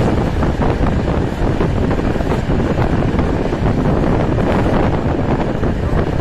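Steady rush of wind on the microphone over the running rumble of a passenger train, recorded at an open train window.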